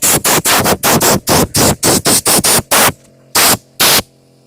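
Compressed air from an air compressor's line blasting out of a plastic bottle in rapid hissing spurts, about five a second. After a short pause come two last blasts, and it stops about four seconds in.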